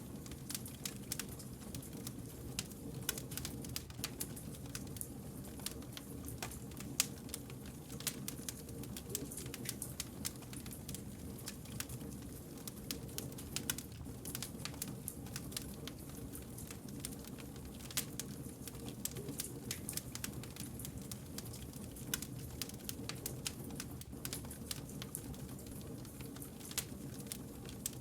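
Wood fire crackling steadily, with frequent sharp pops and snaps over a low, even rumble of flames.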